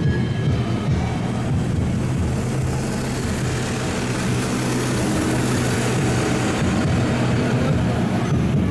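Train passing a railway level crossing: a steady rumble with a rushing hiss that swells and fades in the middle.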